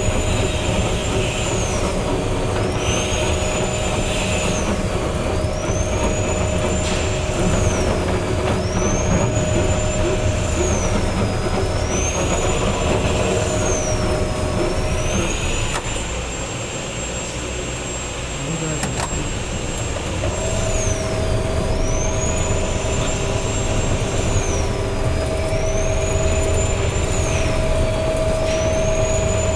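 Steady machinery noise with a high whine that dips in pitch and climbs back about every two and a half seconds, over a steady hum that stops for a few seconds midway and then returns.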